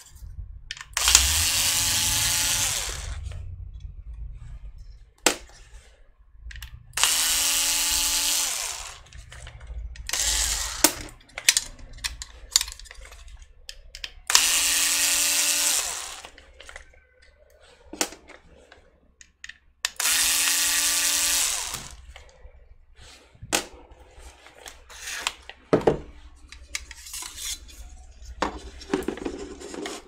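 Cordless electric screwdriver running in four short bursts of about two seconds each, steady motor whine, backing screws out of a laptop hard drive's metal mounting bracket. Between the bursts come sharp clicks and light clatter of the metal bracket and screws being handled.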